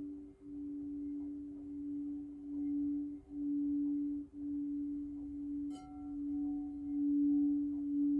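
Crystal singing bowl sustaining a low, steady tone with a second tone just above it, swelling and dipping in loudness. A single light strike with a higher ringing note comes about six seconds in.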